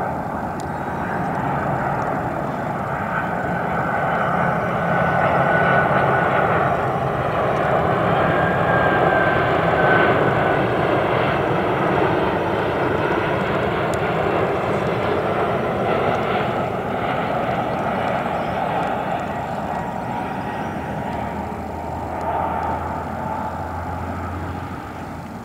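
Boeing 767-300's twin turbofan engines on final approach with landing gear down: a steady jet roar with a thin high whine that grows louder as the airliner passes by, then slowly fades as it flies on toward the runway.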